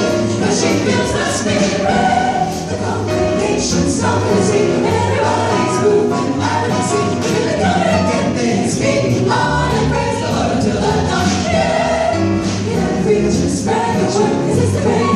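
A mixed vocal group singing in harmony into microphones, backed by a band, with a drum kit's cymbals keeping a steady beat about twice a second.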